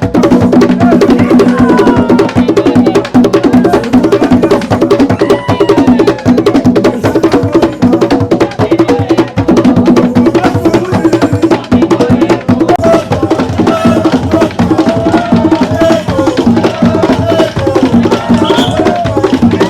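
Tambor de crioula drumming: hand-played drums in a fast, driving rhythm with wooden matraca sticks clicking over it.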